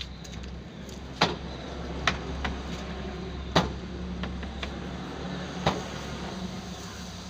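Plastic wheel-arch cladding being fitted onto a Mahindra Scorpio: irregular sharp clicks and knocks a second or two apart, over a steady low hum.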